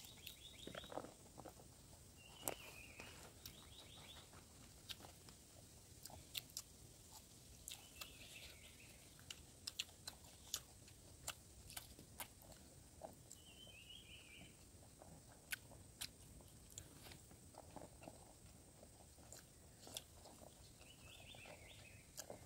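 Faint close-up chewing and sharp mouth clicks of people eating food by hand. A bird chirps briefly a few times in the background.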